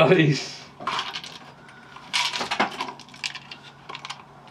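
Clinks, knocks and rattles of metal scrap being handled: the parts of a wrecked food mixer motor pulled from a pile of junk, in quick irregular bursts.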